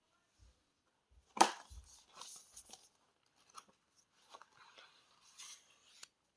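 Paper and plastic album packaging being handled: scattered rustles and light clicks, with one sharp click about a second and a half in and a few soft low thumps in the first two seconds.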